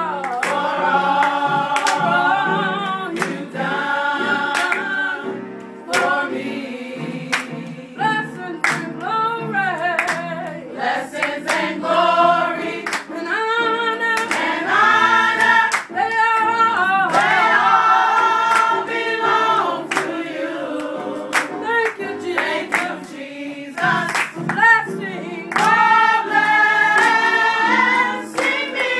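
A group singing a gospel song, with hand-clapping keeping the beat.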